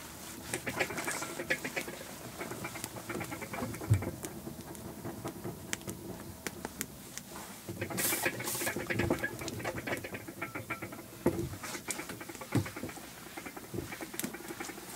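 A wet cloth scrubbing a wooden table top in quick back-and-forth strokes, rubbing with a squeaky note. A short burst of spray from a hose nozzle comes about eight seconds in.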